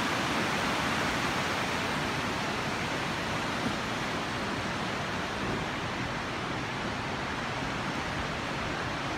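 Steady rushing of river rapids: an even, unbroken hiss of water that fades slightly in the second half.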